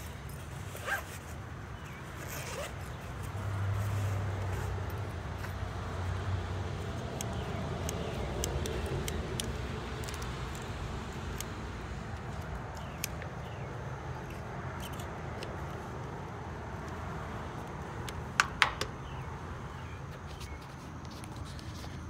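A zipper on a soft tool case being opened, then rustling and handling noise as meter test leads are taken out and laid down, with a few sharp clicks about three-quarters of the way through.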